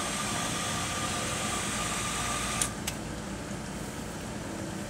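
Irrigation well pump running steadily while air hisses out of a bleed fitting on the line, releasing air so the indexing valve's stem and disc drop quicker. About two and a half seconds in, the hiss cuts off with two sharp clicks, leaving only the pump's hum.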